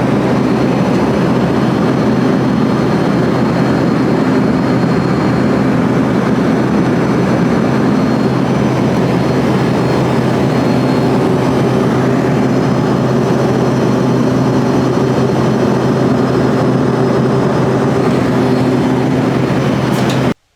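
Jet aircraft engines and airflow making a loud, steady drone with a few constant tones in it; it cuts off abruptly near the end.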